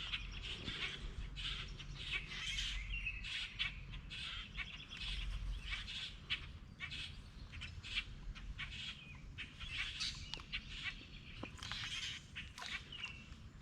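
Small birds chirping in a dense, continuous chorus of short, quick calls.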